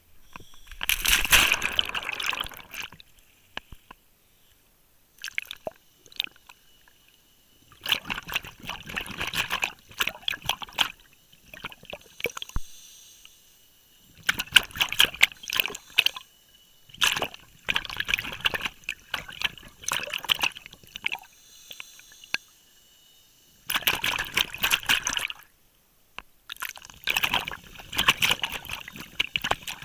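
Underwater, a diver breathing through a regulator: about six bursts of bubbling exhaled air, each a second or two long, every few seconds with quieter gaps between.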